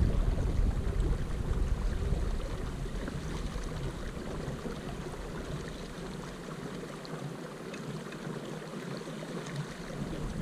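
Steady wash of water with wind rumbling on the microphone; the wind rumble eases about four seconds in and picks up again near the end.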